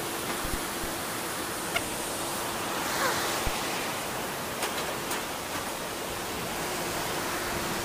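River water rushing steadily, an even continuous noise with a few faint clicks.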